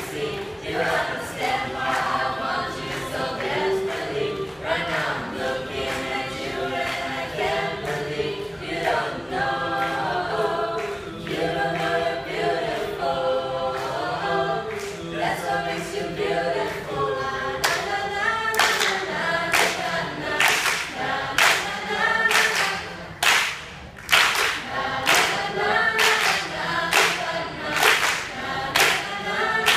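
A mixed group of young male and female voices singing a cappella in harmony into microphones. Just past the halfway point, sharp hand claps join in time with the song, about one to two a second.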